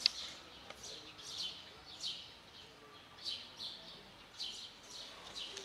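Small birds chirping: short, high chirps repeating about twice a second.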